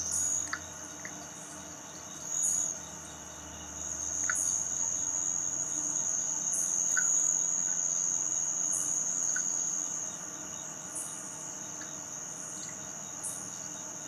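Night insects, crickets among them, trilling steadily at a high pitch. The trill swells louder for several seconds mid-way, and a higher, softer chirp repeats every second or two.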